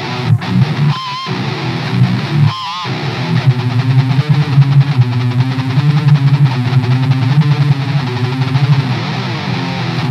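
Electric guitar played through a high-gain distortion stacked with a Coolmusic Crunchy overdrive and an EVH cabinet impulse response, giving a heavily distorted metal tone. A few wavering, squealing high notes in the first seconds give way to a fast picked riff.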